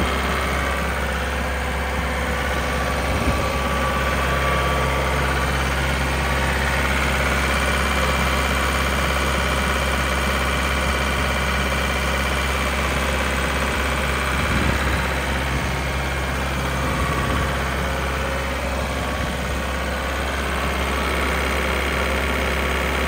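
Turbocharged John Deere diesel engine of a Sullair 185 CFM portable air compressor running at a steady speed, with a deep even hum and a brief knock about three seconds in.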